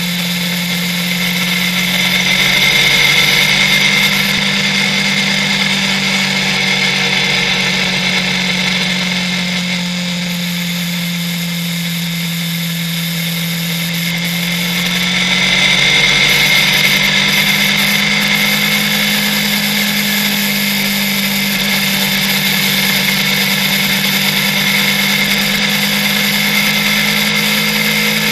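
Motorcycle engine droning steadily at motorway cruising speed, with wind and road noise. Its pitch climbs a little about two seconds in and again around fifteen seconds, and it gets louder each time, as the bike speeds up.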